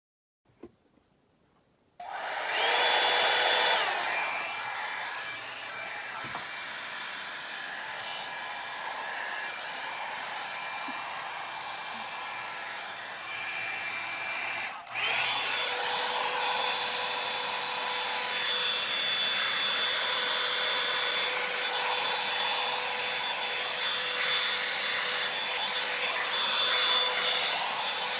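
Revlon One-Step hair dryer and volumizer brush switched on about two seconds in, its motor and fan running with a steady rush of air and a high whine. About halfway it briefly drops out and spins back up, then runs on steadily.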